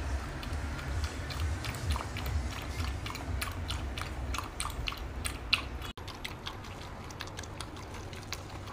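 A poodle lapping liquid from a plastic bowl: a quick, uneven run of wet clicks and smacks. They thin out after a brief dropout about six seconds in.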